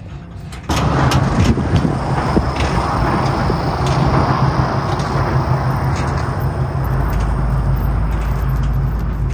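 A motor vehicle's engine running steadily with road noise, cutting in suddenly about a second in; a deeper rumble joins near the end.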